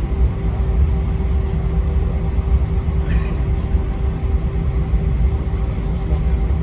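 Steady low rumble of an Airbus A321's engines and airflow heard inside the passenger cabin, with a constant hum over it.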